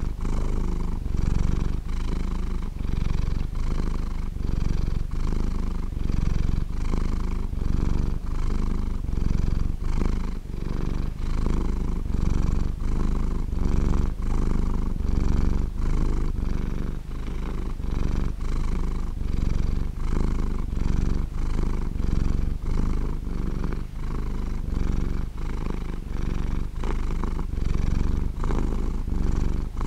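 Domestic cat purring, a deep continuous rumble that swells and eases in an even rhythm with its breathing.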